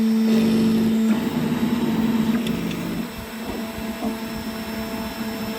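A 3D-printed CNC router runs with its spindle whining steadily while its stepper motors drive the axes into the program's first moves. The motor tones shift in pitch in steps during the first few seconds, then the sound settles a little quieter.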